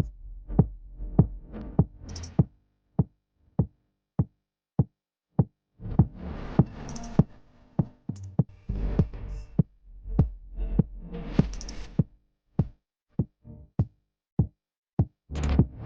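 Electronic dance music with a drum-machine beat, a little under two beats a second. The track thins to bare beats for a few seconds, then fuller synth swells return.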